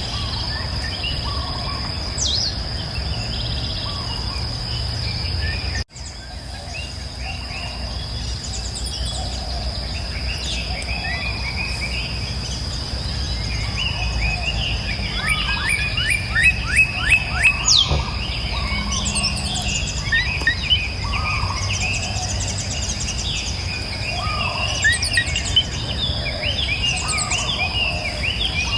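Several wild birds chirping and singing in short phrases over a steady, high-pitched insect drone and a low background rumble. About halfway through, one bird gives a fast run of repeated chirps. The whole sound cuts out for an instant about six seconds in.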